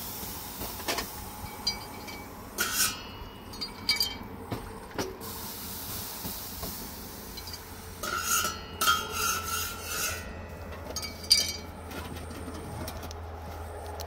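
Scattered clinks, knocks and scrapes of objects being handled, with louder scraping bursts about three seconds in and from about eight to ten seconds in.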